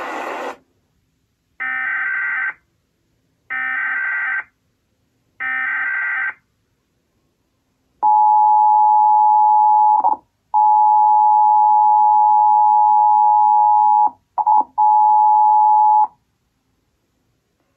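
Emergency Alert System tones heard through a TV: after the programme sound cuts off, three screeching SAME header data bursts about a second each, then the two-tone attention signal, a steady dual tone held for about eight seconds that drops out briefly three times.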